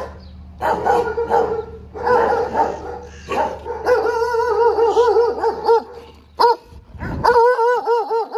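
Shelter dogs barking, then one dog giving a quick run of high, wavering yips, about five a second, broken once near the end.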